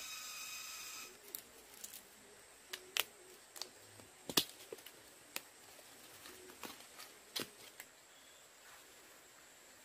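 Sharp snaps and clicks of Burmese grape fruit being plucked by hand from clusters on the tree trunk, irregular and loudest about four seconds in, stopping shortly before the end.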